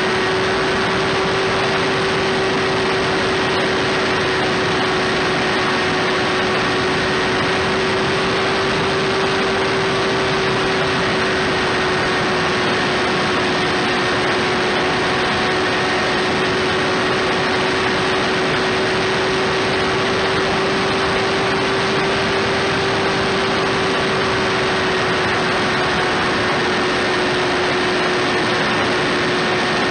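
Electric motor and propeller of a FliteTest Bloody Wonder RC foam plane running at a steady throttle, heard from a camera on the plane: an even whine that barely shifts in pitch over a constant rush of air.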